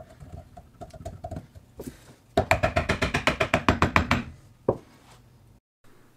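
Wooden handle being knocked down onto the steel shank of a wrench-made scorp held in a vise, driving the shank into the handle's drilled hole: a few light taps first, then a fast run of sharp knocks, about ten a second, and one last single knock.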